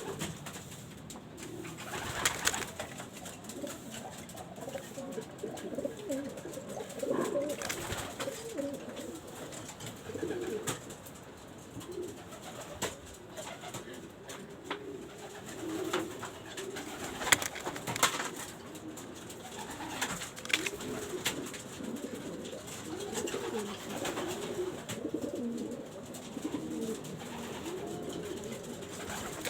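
Pigeons cooing on and off, low wavering coos repeated throughout, with a few sharp taps now and then.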